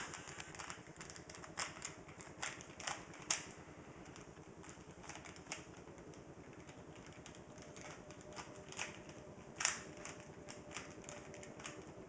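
Plastic Rubik's Cube layers being turned quickly by hand: an irregular run of clicks and clacks, with two sharper clacks about three and ten seconds in.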